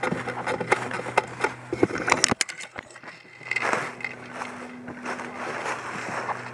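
Irregular crackling and scraping of a player moving on foot through dry brush and leaves: a dense run of sharp snaps for about two seconds, then softer rustling after a brief lull.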